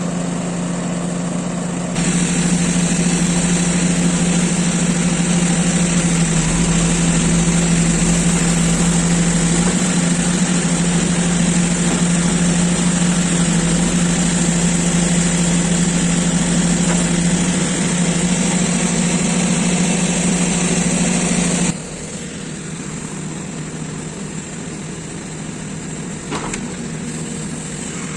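JCB 3DX backhoe loader's diesel engine running steadily. It gets louder and harsher about two seconds in, then drops back suddenly to a lower level about three quarters of the way through.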